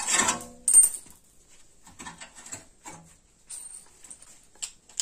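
Screwdriver working a screw out of a dishwasher's sheet-metal frame: a few sharp metallic clicks and scrapes in the first second, then scattered faint ticks.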